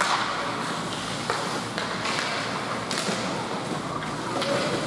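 Ice hockey play: a steady hiss of skates on the ice, with a few sharp clacks of sticks and puck.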